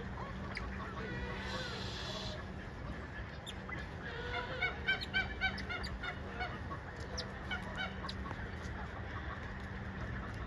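Farmyard poultry calling: a quick run of about six short pitched calls, roughly four a second, around the middle, with fainter scattered calls before and after.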